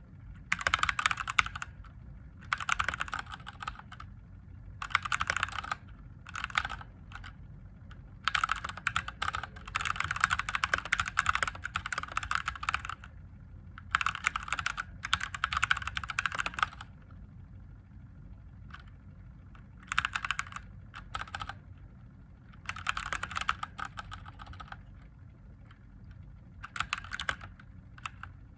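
Typing on a mechanical keyboard with Gateron Yellow linear switches. The clacking comes in spurts of a second to several seconds, with short pauses between them. The longest run falls about a third of the way in.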